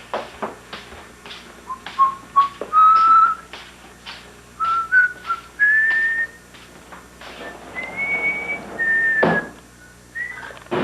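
A tune whistled as a string of clear single notes that step mostly upward in pitch, mixed with scattered clicks and knocks.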